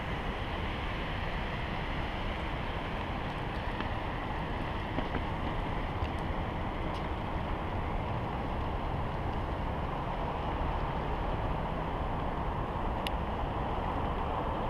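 Steady rushing wind noise on a helmet-mounted camera microphone, with a few faint clicks and one sharper click near the end.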